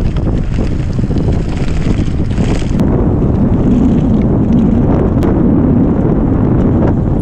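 Wind buffeting the microphone of a handlebar-mounted camera on a bicycle ridden at about 30 km/h, over a steady low rumble of tyres on paving and road. The hiss thins and the rumble grows about three seconds in, with a couple of sharp clicks.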